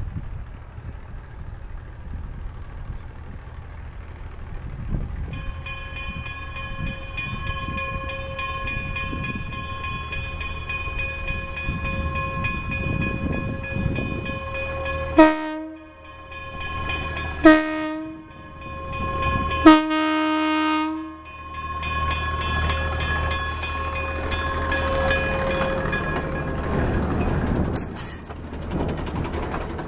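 Pennsylvania Railroad doodlebug motor car approaching and sounding its horn: a held tone, then three sharp blasts about two seconds apart, the last one longer. Near the end the car rolls close past with engine and wheel noise on the rails.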